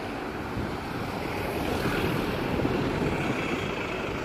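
City street traffic: a vehicle passing close by, its noise swelling to a peak around the middle and easing off toward the end.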